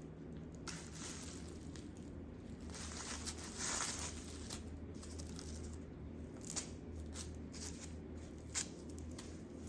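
Rustling and crinkling as a human-hair wig is handled and taken out of its net and packaging, with a louder rustle about three and a half seconds in and a few light ticks near the end.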